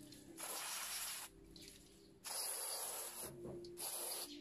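Aerosol cleaner spray hissing in three bursts, two of about a second each and a shorter one near the end, sprayed onto an idle air control valve to clean off carbon.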